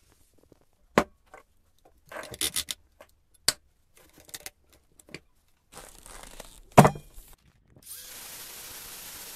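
Clicks, rattles and knocks of a flap disc and cordless angle grinder being handled and fitted, with the loudest knock near 7 seconds. From about 8 seconds on, a steady hiss from the angle grinder's flap disc grinding rust off a steel leaf spring.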